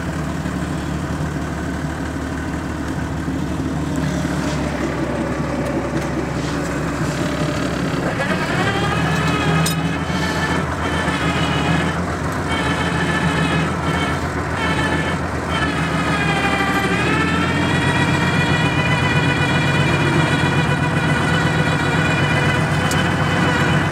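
Tractor engine running steadily under load while ploughing, with a high whine over it that rises in pitch about a third of the way in and again about two-thirds of the way in.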